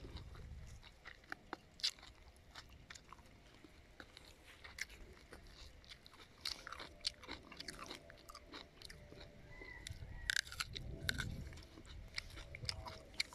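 A person biting and chewing a small, crisp apple-like fruit with a seed, giving irregular crunches and clicks close to the microphone.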